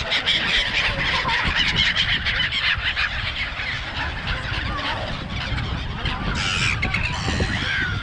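A large flock of seagulls calling over one another in a dense, continuous clamour of short squealing calls, with a steady low rumble underneath.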